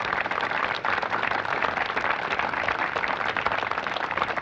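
Audience applauding: many hands clapping together in a steady dense crackle.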